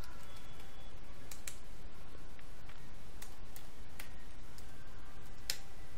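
Computer keyboard keystrokes: about ten separate clicks at irregular spacing, over a steady background hiss.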